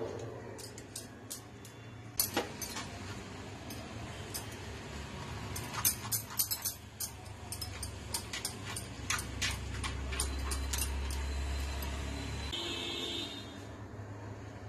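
Silicone spatula scraping and tapping against a stainless-steel mesh strainer as a thick paste is pressed through it: a scattered run of light clicks and scrapes, thickest midway. A low rumble joins partway through and stops suddenly about two seconds before the end.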